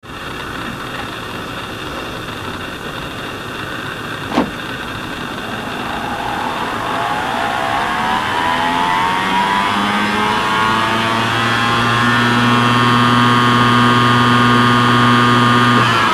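Otari MX-80 24-track reel-to-reel tape recorder winding tape at high speed: a steady whir from the spinning reels and motors, with a sharp click about four seconds in. A whine then rises in pitch as the reels speed up and levels off at full winding speed.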